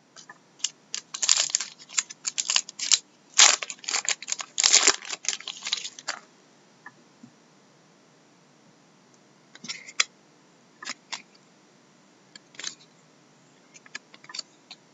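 Hands opening a hockey card pack and handling the cards: a dense run of crinkling and rustling for about six seconds, then a few scattered light clicks as the cards are slid and flipped.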